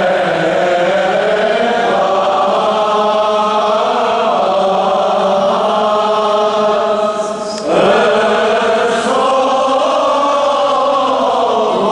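Armenian church choir chanting a liturgical hymn in a steady melodic line, with a short break about two-thirds of the way through before a new phrase begins.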